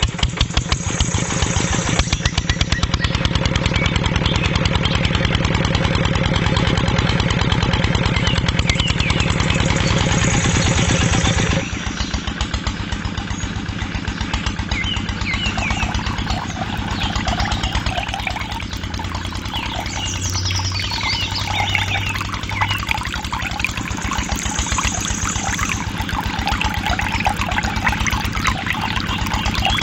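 Small stationary diesel engine running with a rapid, even putt-putt. About twelve seconds in it suddenly gets quieter and its tone changes, then it runs on steadily.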